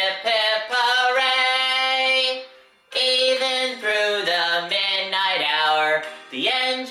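A sung melody over a music track, with a long held note and a short break about three seconds in before the singing picks up again.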